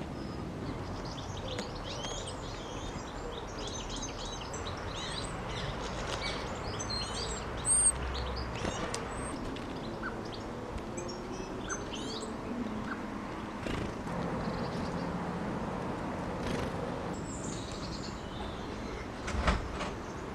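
Small garden birds chirping and twittering in quick, high notes, busiest in the first half, with one sharp loud high call about eight seconds in, over a steady low background hum. A brief thump near the end.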